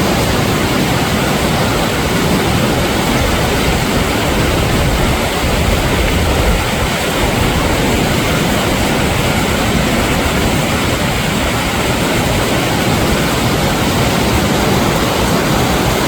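Mountain valley stream rushing: a loud, steady wash of water noise with no breaks.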